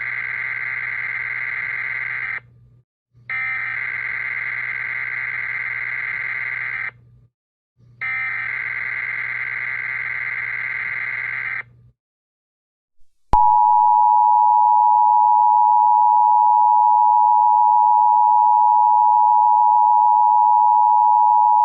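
Mock Emergency Alert System signal: three bursts of buzzing SAME header data tones, each about three and a half seconds long, the first already under way. About a second and a half after the last burst, the loud, steady two-tone EAS attention signal comes on and holds for about eight seconds.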